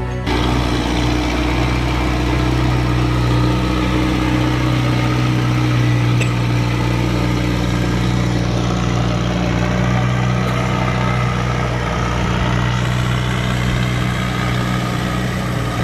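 Rough-terrain forklift's engine running steadily as the machine drags a shed across a dirt lot on a chain.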